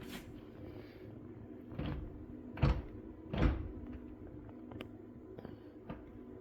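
Wolf range oven door knocking and clunking on a loose hinge as it is pulled up and let back down, four knocks in the first few seconds, then a few faint ticks. The knocking comes from a lot of play in the hinge on that side of the door.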